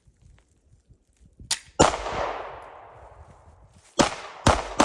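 Pistol gunfire: a single shot about two seconds in, its report trailing off in a long echo, then a quick string of shots starting near the end.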